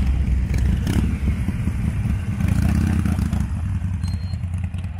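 Harley-Davidson motorcycles' V-twin engines running at low revs as the bikes pull away slowly: a deep, steady rumble that swells a little about two and a half seconds in. A single sharp click about a second in.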